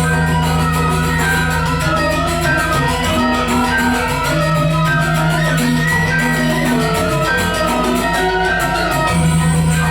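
Balinese gamelan ensemble playing dance accompaniment: many ringing pitched notes layered over a held low tone.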